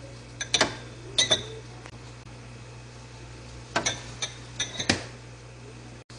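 Kitchen containers being handled and set down: short clinks and knocks, two near the start and a quick cluster about four to five seconds in, over a steady low hum.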